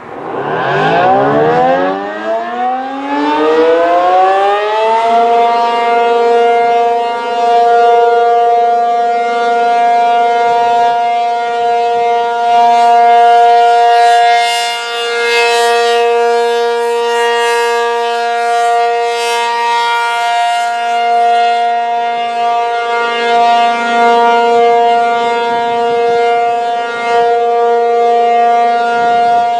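ACA P-50 outdoor warning siren starting up: its tone winds up in pitch over about the first five seconds, then holds a steady Alert tone, with its loudness wavering slightly.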